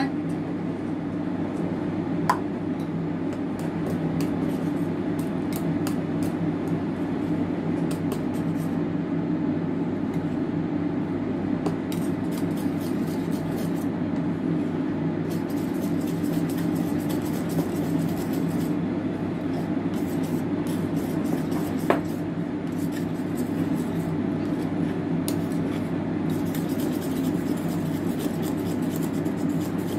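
Utensil clinking and scraping against a mixing bowl as cake batter with crushed walnuts is stirred, many short clicks over a steady low hum.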